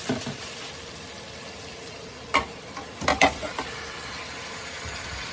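Chicken wings and vegetables frying in a pan with a steady sizzle. A few sharp knocks come about two and a half and three seconds in, and again at the very end.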